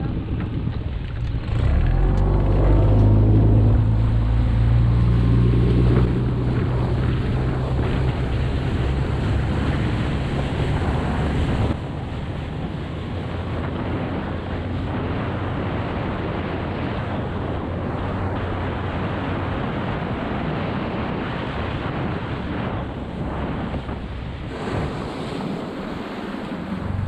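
Outboard motor on a Gheenoe skiff running under way: it comes up in level about two seconds in and holds a steady low hum, with wind buffeting the microphone and water rushing along the hull. The engine sound drops back about twelve seconds in while the wind and water noise carry on.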